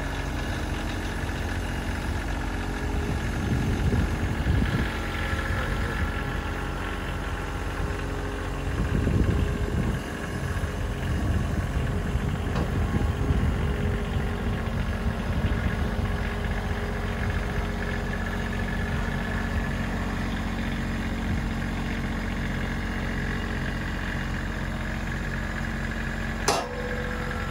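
Kubota LX2610 compact tractor's three-cylinder diesel engine running as the tractor is driven down the trailer's aluminium ramps, louder and rougher for a few seconds twice in the first half. A sharp knock near the end.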